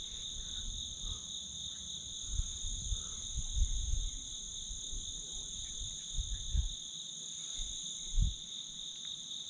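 Steady insect chorus: a continuous high-pitched drone in two pitches that never breaks. A few low thumps, the strongest about eight seconds in.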